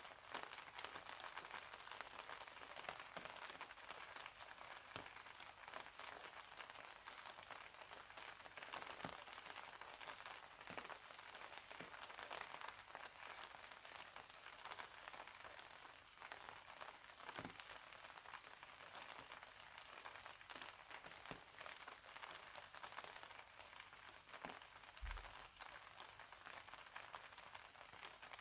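Steady, faint rainfall hissing, with scattered single drops tapping distinctly. A brief low thump comes near the end.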